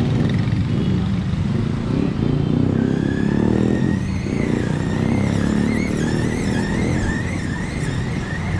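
Busy city street traffic: motorcycle and car engines running and passing in a steady low rumble. From about three seconds in, a high thin tone wavers up and down above it.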